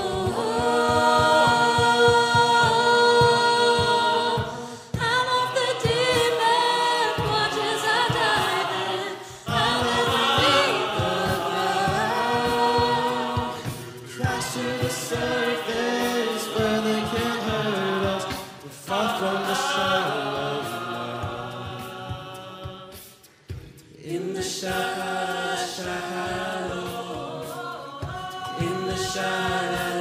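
Mixed-voice a cappella group singing in close harmony without words, two soloists on microphones over the ensemble. The singing comes in phrases of a few seconds, with short breaks about every four to five seconds.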